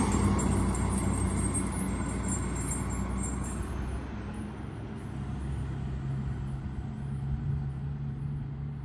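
Motor vehicle engine sound fading over the first four seconds as it moves off, leaving a steady low engine hum.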